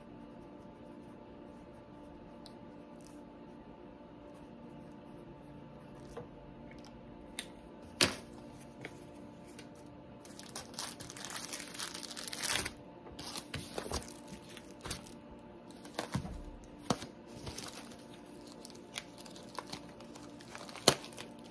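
Plastic packaging crinkling and rustling as small bags of diamond-painting drills and a plastic-wrapped rolled canvas are handled, with scattered taps and clicks. It begins after several quiet seconds and is busiest from about ten seconds in.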